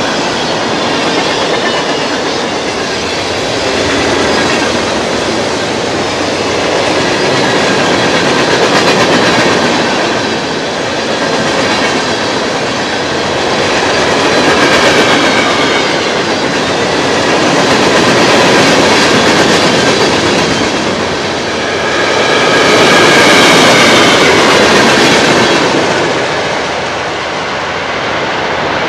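CSX freight train's open-top hopper cars rolling past, steel wheels running over the rails in a loud, continuous rumble that swells and fades every few seconds. A faint high wheel squeal comes and goes over the rumble, loudest about three-quarters of the way through.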